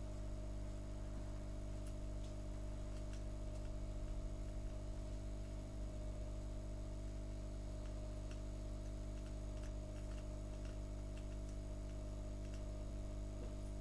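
Steady electrical hum with several steady tones, and a few faint small clicks scattered through it.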